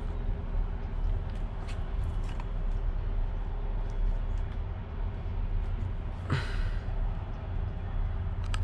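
Allen key working out the steering wheel bolts: a few faint metallic clicks and one short scrape about six seconds in, over a steady low rumble.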